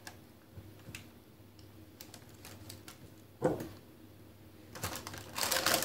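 Hands handling a raw whole chicken on parchment paper: faint scattered clicks and handling noises, a short louder sound a little past halfway, then paper rustling near the end.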